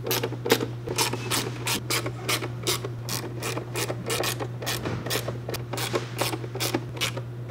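Small hand ratchet wrench clicking in quick, even strokes, about three clicks a second, as fasteners are tightened.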